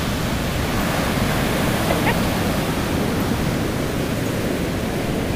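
Steady rush of ocean surf breaking on the beach, mixed with wind on the microphone.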